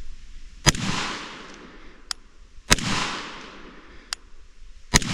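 Three pistol shots about two seconds apart, each followed by a long echo fading through the surrounding woods, with a faint sharp click between each pair of shots.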